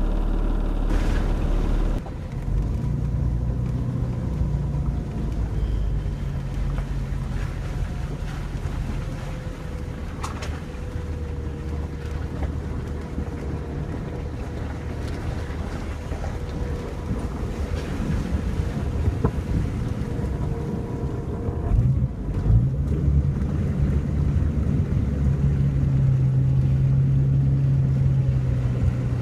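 Jeep Cherokee engine running as the SUV is driven, heard from inside the cabin, with road noise. The engine note changes about two seconds in and again about 22 seconds in, settling into a steady, stronger drone near the end.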